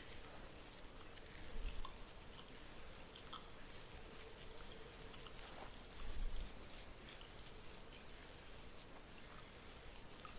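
Fingernails scratching through beard hair: a dense, fine crackling rustle, with two soft low bumps about two and six seconds in.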